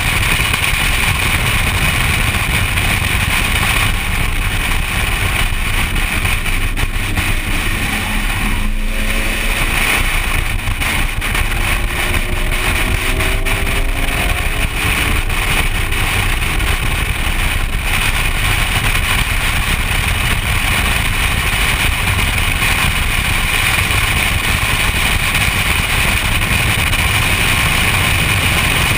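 BMW E46 M3's straight-six engine running hard at track speed, heard inside the cabin under loud, steady wind and road noise. The engine eases briefly about nine seconds in, then its note climbs in pitch as the car accelerates again.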